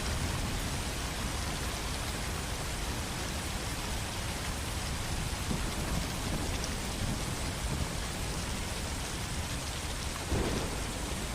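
Steady, heavy rain falling, a dense even hiss with a low rumble underneath and a brief louder swell about ten seconds in.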